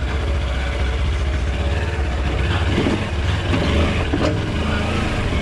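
Kawasaki Versys-X 300's parallel-twin engine running steadily under load as the bike climbs a steep rocky hill, with a sharp knock about four seconds in.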